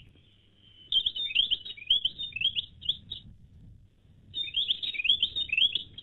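Recording of a small songbird's call: two runs of quick, high, chirping notes, each about two seconds long, with a short pause between them.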